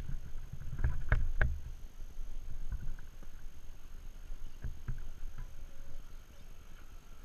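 Scale RC rock crawler picking its way over rock and dirt: scattered knocks and clunks, loudest about a second in, over low rumbling noise, with a faint electric motor whine in the second half.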